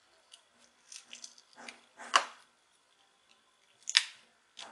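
Small plastic clicks and scrapes as the cover of a Sony SBH50 Bluetooth headset is pried loose by hand, with two sharper snaps, about two seconds in and about four seconds in.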